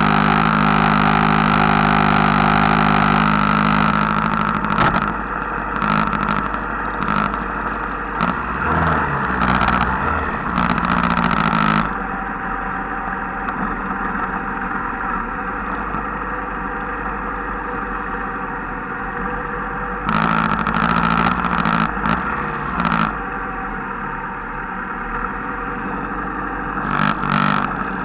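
Engines of a group of motorcycles and a scooter running as they ride slowly in convoy. The sound is loudest for the first few seconds and swells in several surges later on.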